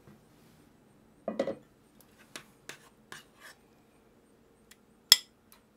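Kitchen utensils and dishes being handled: a low scrape about a second and a half in, a few light clicks, then a sharp, ringing clink of metal on a dish near the end.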